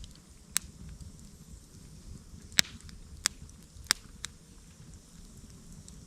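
Campfire wood crackling, with several sharp, irregularly spaced pops over the first four seconds or so.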